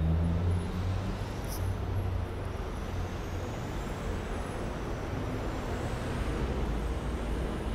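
Steady low rumble of New York City subway trains approaching an elevated station, with a faint high whine that slowly rises in pitch.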